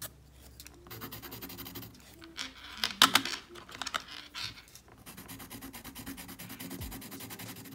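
Graphite pencil hatching on textured watercolour paper: a scratchy scraping of short strokes, turning into a fast, dense run of strokes in the second half. About three seconds in, a brief clatter as a pencil is taken from the metal pencil tin.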